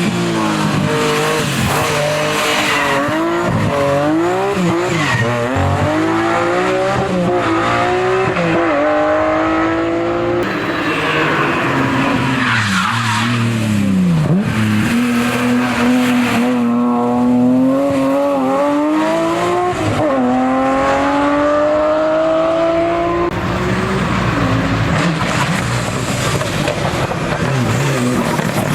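Hill-climb racing car engine running hard through the gears: the pitch climbs, drops back at each shift and dips where the car slows, then winds up again several times.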